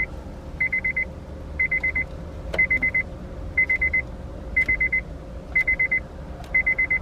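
Car's key-in-ignition warning chime sounding: short trills of about five rapid high beeps, repeating roughly once a second, over a low steady hum.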